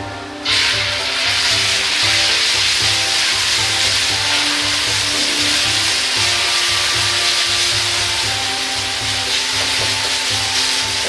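Boiled somen noodles dropped into hot oil in a wok, sizzling loudly from about half a second in and frying steadily as they are spread out to crisp.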